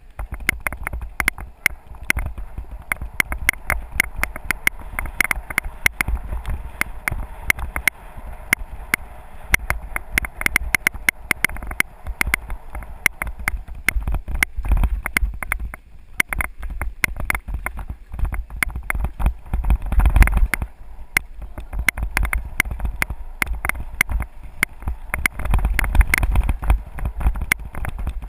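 Mountain bike descending a rough dirt singletrack, heard close from the ride: rapid, irregular rattling and knocking of the bike over the ground above a steady low rumble, with heavier jolts about halfway through and near the end.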